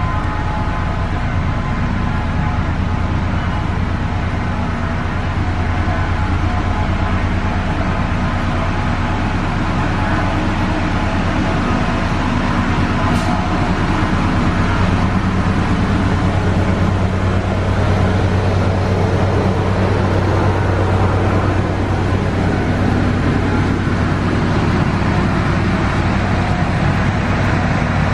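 Steady, loud mechanical drone: a low hum with several steady tones above it, like a motor running without a break.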